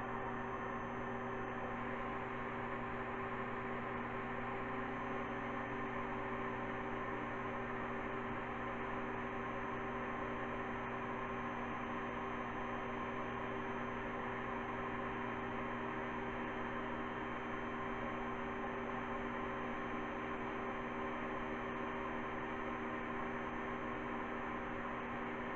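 Household vacuum cleaner running steadily: a hum with several steady tones, its airflow driving the rotors of a 3D-printed propfan engine model.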